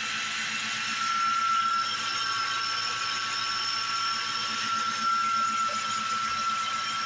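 Lincoln Town Car's 4.6-litre V8 idling steadily, with a steady high whine over it, its newly fitted alternator charging at about 14 volts.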